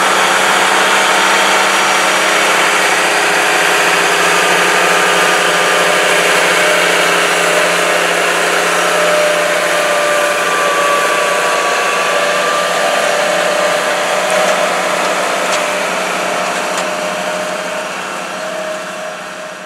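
Steiger Tiger III ST-450 tractor's diesel engine running under load while pulling a tillage implement through the field, a steady loud drone that fades down over the last few seconds.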